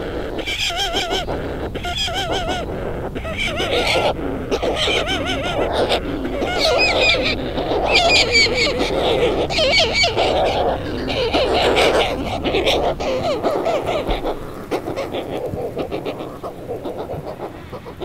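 Short-tailed shearwaters (mutton birds) calling: a dense run of wavering, warbling calls that go up and down in pitch, thinning out and getting quieter over the last few seconds.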